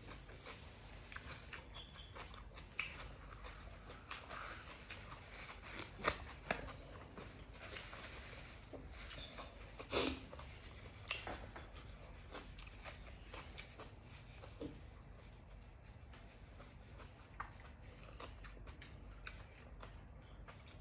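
Close-up eating: chewing and crunching of a meal of spicy grilled-pork salad with raw vegetables and cucumber, with many small clicks and two louder sharp clacks about six and ten seconds in.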